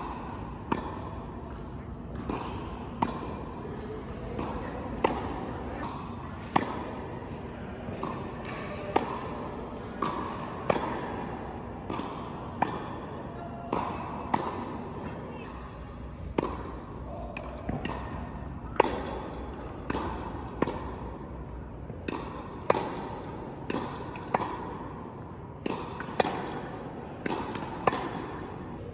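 Tennis rally: a ball struck by rackets and bouncing on the court, sharp pops about every one to two seconds, each echoing in a large indoor hall.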